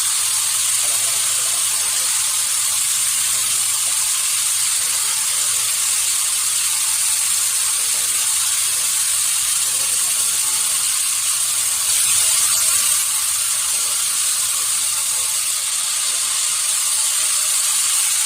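Sawmill machinery running steadily: a dense, even hiss with a thin high whine above it, a little louder about twelve seconds in.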